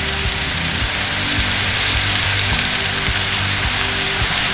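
Scallops searing in oil in a stainless steel pan, sizzling steadily, with background music underneath.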